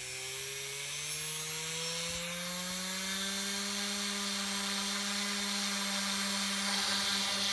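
Stingray variable-pitch quadcopter's motor and rotors spooling up on the ground, a whine that rises in pitch over the first two to three seconds and then holds steady.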